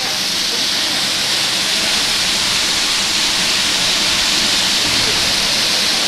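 Steady rushing hiss of a small waterfall pouring over rock into a pool.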